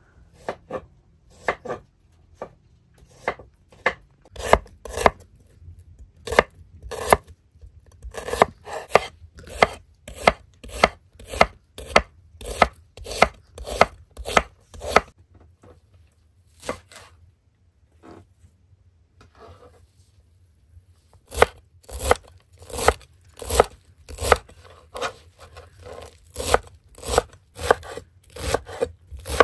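Chef's knife slicing an onion and chopping fresh parsley on a wooden cutting board: steady knife strikes on the board, about two a second, with a pause of a few seconds near the middle.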